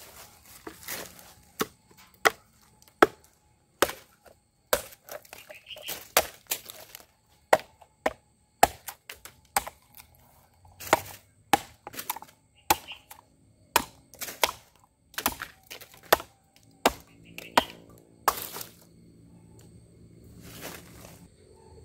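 Hand-forged kukri knife chopping into wood: a long series of sharp, dull chops at about one to two a second, thinning out near the end.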